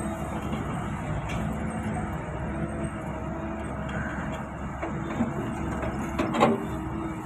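Hitachi ZX excavator's diesel engine running steadily while it digs a trench, with a sharp knock a little after six seconds in, the loudest moment.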